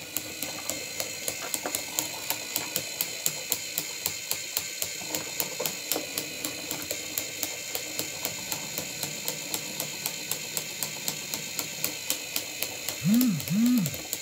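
The small electric motor of a 3D-printed walking spider robot whines steadily as it drives the plastic gears and leg linkages. The robot clicks evenly about three times a second as its legs step. Two brief low rising-and-falling tones come near the end.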